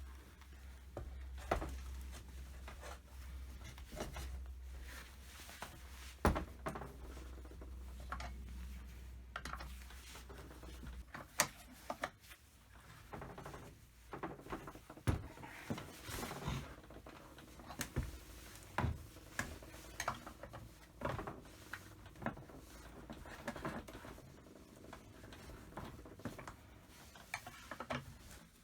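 Scattered clicks and light metallic knocks of hand tools and small chainsaw parts being handled during disassembly work. A low hum underneath stops about eleven seconds in.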